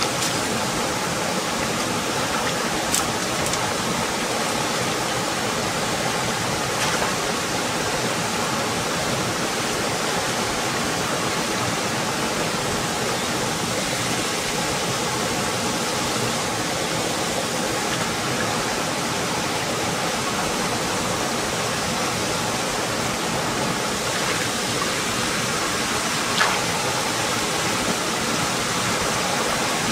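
Steady rushing of a small cascade and rocky forest stream, with a few faint brief clicks.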